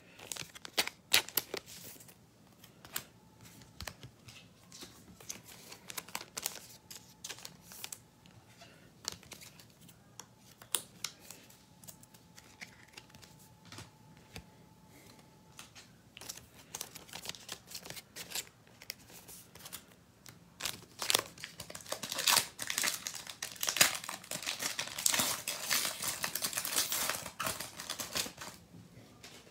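Trading cards handled with scattered light clicks and taps, then a trading-card pack wrapper torn open and crinkled for several seconds near the end.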